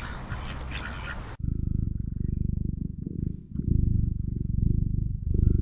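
Domestic cat purring close up: a low, rapidly pulsing rumble that starts suddenly about a second and a half in and dips briefly near the middle.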